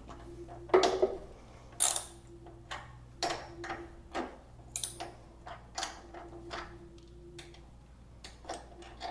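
Hand ratchet wrench clicking in short irregular runs as it backs off a 17 mm nut on a motorcycle's upper shock-absorber bolt; the nut is loose and turning freely. The loudest clicks come about one and two seconds in, with fainter ones after.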